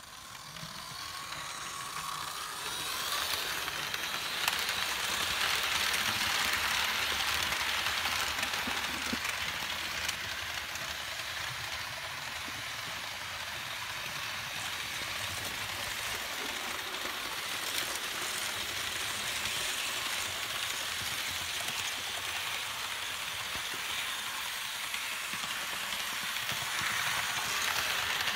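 Märklin HO-scale SNCF BB 9278 electric locomotive model hauling stainless-steel express coaches, giving a steady rolling noise of motor and wheels on the track. It grows louder over the first few seconds as the train gets under way, then runs on evenly.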